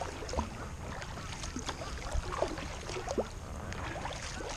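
Kayak paddle strokes in calm water: small splashes and drips from the paddle blades as they dip and lift, coming irregularly several times.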